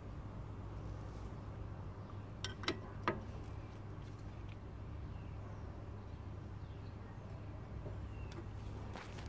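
A 14 mm combination wrench on the brake caliper's brake-hose banjo bolt, making three sharp clicks about two and a half to three seconds in, over a steady low hum.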